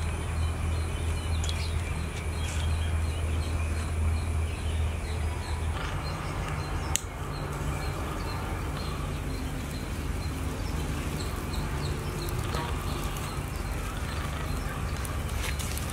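Outdoor rural ambience: a steady insect buzz, low at first and a little higher from about six seconds in, with faint bird chirps. A single sharp click comes about seven seconds in.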